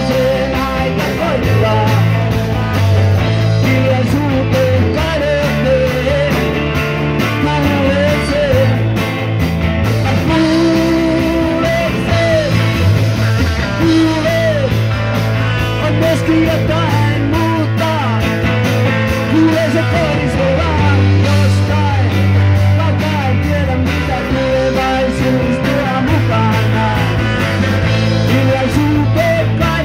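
Live rock band playing through a PA: electric guitars, bass and drums, with a male singer's vocals.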